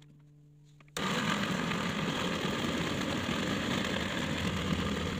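Electric mini food chopper starting about a second in and then running steadily, its blade mincing raw pork and fish into a paste.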